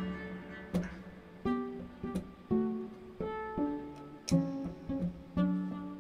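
Instrumental music: single plucked string notes in a steady rhythm, about one to two a second, each ringing briefly and dying away.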